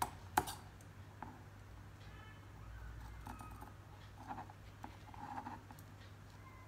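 Fabric scissors cutting through stiff canvas interlining: a sharp click just after the start, then faint, irregular snips.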